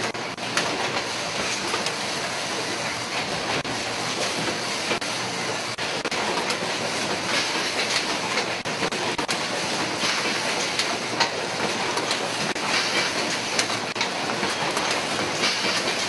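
Syringe assembly-line machinery running with a steady, dense clatter and many small clicks.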